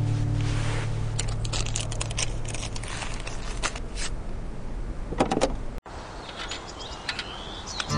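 Handling sounds of unboxing a 3D printer: a run of short clicks, taps and rustles as the cardboard box, foam packing and printer parts are moved, with a denser cluster about five seconds in. Background music fades out over the first couple of seconds.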